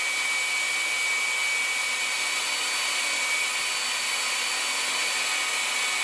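Electrolux Ergorapido Li-21 cordless stick vacuum running steadily: an even airy hiss with a thin high whine. It keeps going on its rebalanced three-cell 18650 lithium battery pack instead of cutting out after about four seconds.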